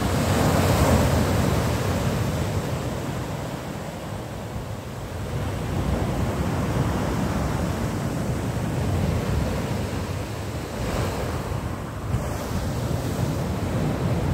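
Sea waves breaking and washing up the shore: a steady rushing surf that swells and eases several times, loudest about a second in.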